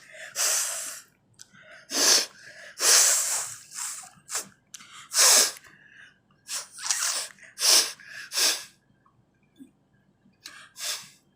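A woman sneezing and blowing her nose hard: about ten short, forceful blasts of air at uneven intervals. Her nose is dry with no cold, so little more than water comes out.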